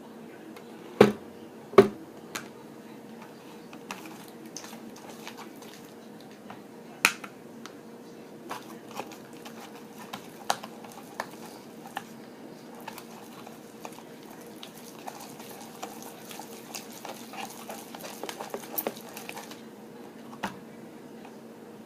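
Spoon knocking and scraping against a bowl while slime is stirred: two sharp knocks about a second in, then scattered clicks, and denser scraping near the end.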